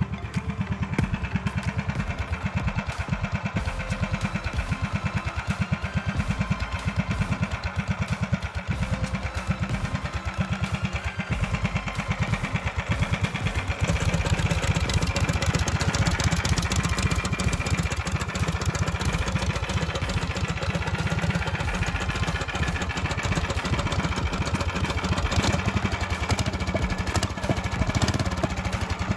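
Predator 301 cc single-cylinder four-stroke engine with an open straight exhaust pipe running with a rapid, even firing beat. It gets louder and fuller about halfway through.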